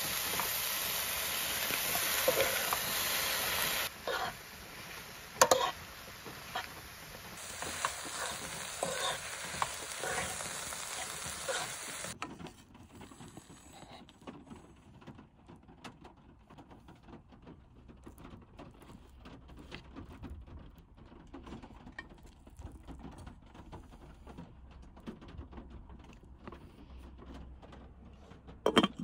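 Chopped peppers, tomato and mushrooms sizzling in a frying pan as a utensil stirs and knocks against it. About twelve seconds in, the sizzle stops, leaving faint scraping and clicking.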